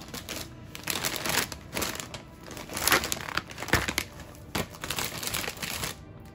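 Snack packaging crinkling as it is handled, in irregular crackling spurts, loudest around the middle.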